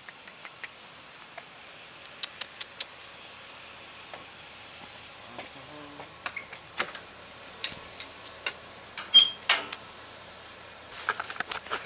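Scattered light clicks and knocks from gear being handled at a pickup truck, with a sharp metallic clink about nine seconds in and a run of crackling near the end. A steady high insect drone runs underneath.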